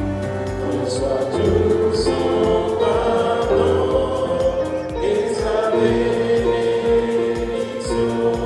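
Background music: a choir singing slow, held chords over a steady, soft beat.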